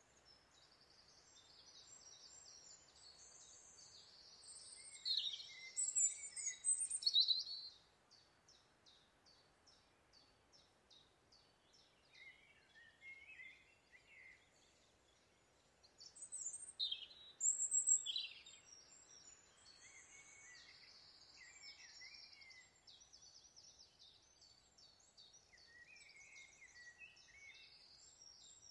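Several songbirds singing and calling in woodland: high chirps and trills, loudest about five to seven seconds in and again around seventeen seconds, with a run of quick, evenly spaced chirps between, over a faint steady background hiss.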